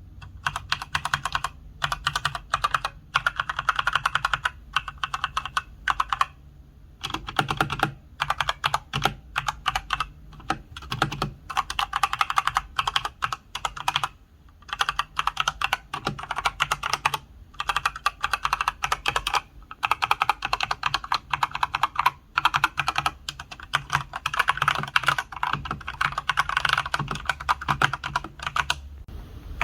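Redragon Sindri K671 mechanical keyboard with Outemu red linear switches, typed on fast. The keystrokes come in rapid runs broken by short pauses.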